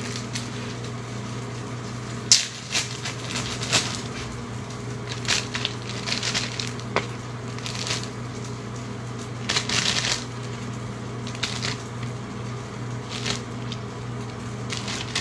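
Knife cutting fruit by hand: irregular crunching cuts and scrapes, the strongest a little over two seconds in and near the middle, over a steady low hum.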